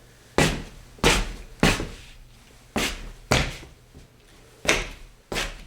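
Scuffing on a stone surface: seven short scuffs at an uneven pace, each starting sharply and fading over about half a second.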